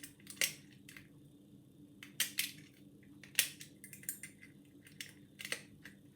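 Homemade lever pick and bent-nail tension tool working inside a worn ERA 5-lever mortice sash lock: irregular light metallic clicks and scrapes, about ten of them at uneven intervals.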